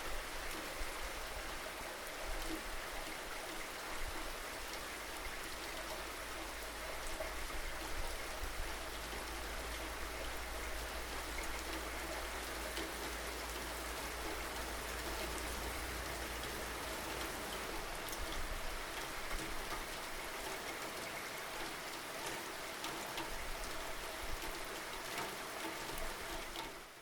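Steady rainfall, an even hiss with scattered drops ticking, which fades down sharply at the very end.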